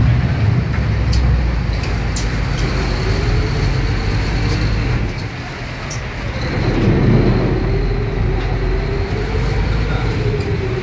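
Passenger riverboat's engines running steadily under way, heard from the open deck with water and wind noise. The engine note dips briefly and then swells again about seven seconds in.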